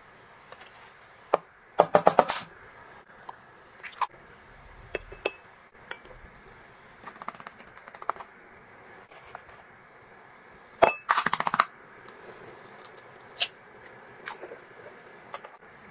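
Kitchen utensils clinking against a bowl: two short bursts of rapid clinks, about two seconds in and again near eleven seconds, with scattered lighter taps and clicks in between.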